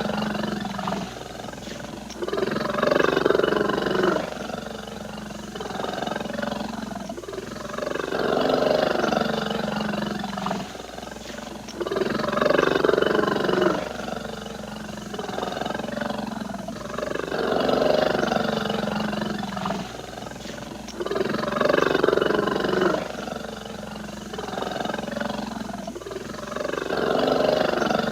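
Polar bear purring: a continuous low purr that swells louder and eases off in a slow, regular cycle about every four to five seconds.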